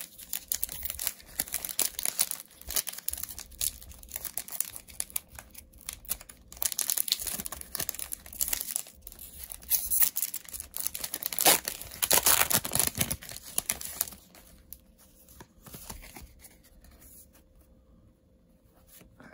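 Pokémon TCG Trick or Trade booster pack's foil wrapper crinkling and tearing as it is ripped open by hand, loudest about two-thirds of the way through, then dying down near the end.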